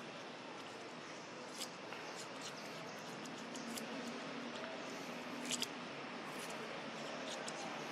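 A macaque biting and chewing a hard green fruit: a few sharp crunches, one about a second and a half in and a louder one past the middle, over a steady outdoor hiss.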